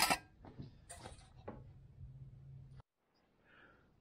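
Thin sheet metal knocking against a sheet-metal brake as the bent piece is pulled free, followed by a few lighter taps and clicks of the sheet being handled over a low shop hum. The sound cuts off abruptly a little under three seconds in.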